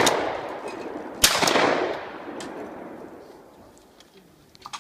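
Shotgun fired at sporting clays: a shot right at the start, then a second shot about a second later. Each rings out in a long echo that fades away over a couple of seconds.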